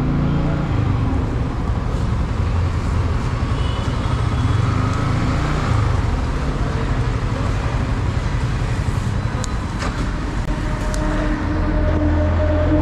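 Yamaha MT-15 motorcycle on the move in road traffic: a steady engine drone mixed with traffic noise. The engine note becomes steadier and more distinct near the end.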